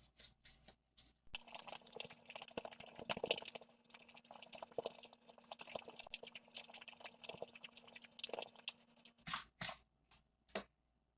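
Crumbly, clumpy protein cookie dough being mixed and worked in a bowl: a dense crunching and squishing that starts about a second in and stops about nine seconds in, followed by a few scattered clicks.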